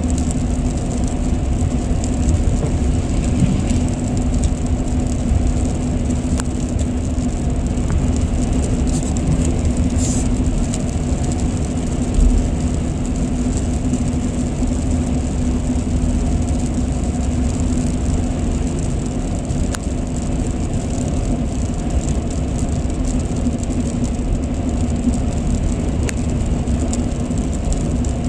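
Steady road and tyre noise inside a moving car's cabin, with a constant low hum. One brief low thump about twelve seconds in.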